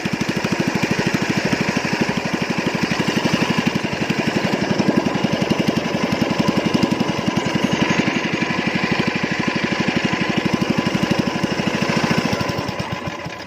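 Small single-cylinder engine running steadily with a fast, even beat, dying away near the end as it is throttled down or shut off.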